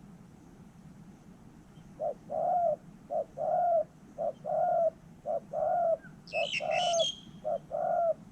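Spotted dove cooing: six paired coos, each a short note followed by a longer one, starting about two seconds in. A smaller bird chirps briefly over the fifth and sixth pairs.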